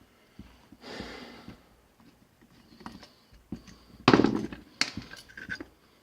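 Hand tools and small metal parts of a weed eater engine being handled during teardown: scattered clicks and knocks, a short scraping rustle about a second in, and a loud clattering knock about four seconds in.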